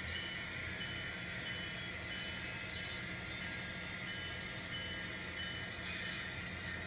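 N scale sound-equipped diesel locomotive running, its engine sound a steady low hum from the loco's speaker, with a bell dinging steadily a little under twice a second.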